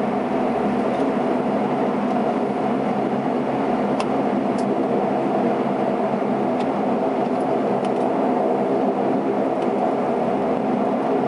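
Cabin drone of a Saab 340B's twin turboprop engines and propellers at taxi power, heard from inside the passenger cabin: a steady hum of several layered tones over a rushing noise, with a few faint ticks partway through.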